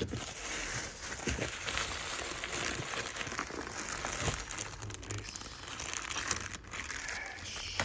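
Bubble wrap and plastic bags crinkling and rustling as hands rummage through the packing in a cardboard box, with many small crackles throughout.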